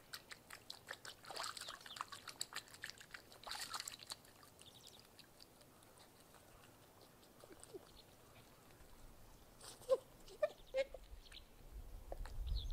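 A swan dabbling and feeding with its bill at the water's surface makes a quick run of small clicks and splashes for the first few seconds. About ten seconds in come a few short honking calls from swans, over a low rumble of wind that builds toward the end.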